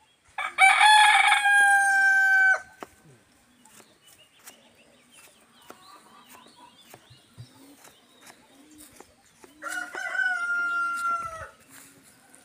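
A rooster crows loudly twice, about nine seconds apart. Each crow lasts about two seconds, held on one pitch and dropping a little at the end. Faint short low notes repeat in between.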